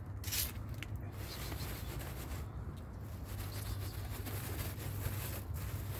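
Outdoor background noise: a steady low hum with a brief rustle about a third of a second in.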